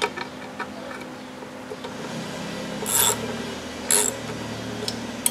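Socket ratchet working the compressor-housing bolts of a turbocharger. There are a few light metal clicks at first, then two short bursts of rapid ratchet clicking about a second apart.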